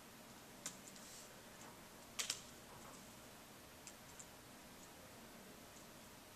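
A few scattered laptop keystrokes against quiet room hiss: a single click about half a second in, the loudest a quick pair of clicks a little after two seconds, then a few fainter ticks.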